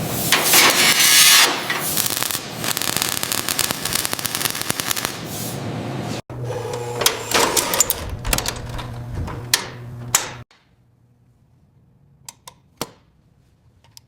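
Workshop tool noise in separate edited shots: a dense, rapid rattling and scraping, then after a cut a steadier running noise with a hum and scattered clicks that stops abruptly about ten seconds in, followed by a few faint isolated clicks.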